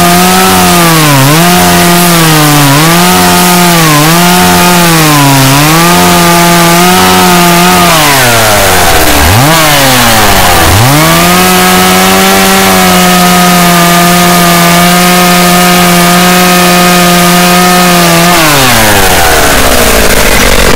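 Chainsaw engine at extreme, distorted loudness. It revs up and down in a string of quick blips for the first several seconds, then holds steady high revs for about seven seconds before its pitch falls away near the end.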